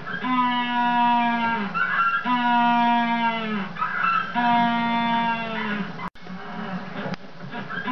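A banded penguin braying in its ecstatic display, head thrown back. Three long, donkey-like calls of about a second and a half each, each dropping in pitch at its end, with a gasping in-breath between them.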